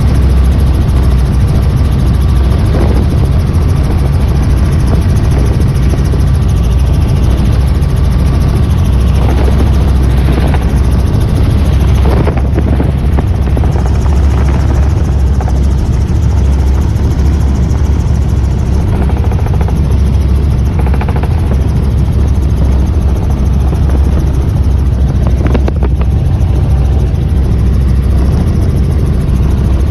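Helicopter engine and rotor noise as heard from inside the cabin in flight: a loud, steady low drone.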